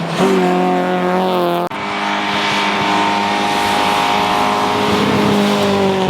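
Race car engine running hard at high, fairly steady revs. It breaks off abruptly about a second and a half in and another stretch of engine sound takes over.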